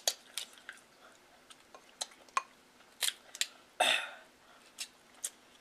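King crab leg shells cracking and snapping as they are broken apart by hand: a scattered run of sharp clicks, with one louder, longer crunching burst about four seconds in.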